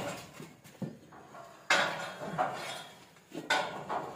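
Steel cattle crush clanking with a cow held inside: a few sharp metal knocks with a short ring, the loudest about halfway through and near the end.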